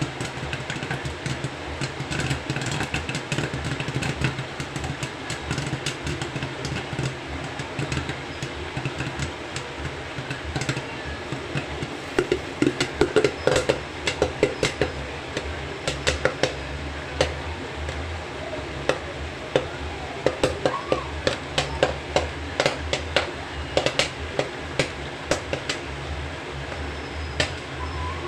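Popcorn being chewed close to the microphone: a run of irregular sharp crunches that starts about halfway through, over a steady low hum.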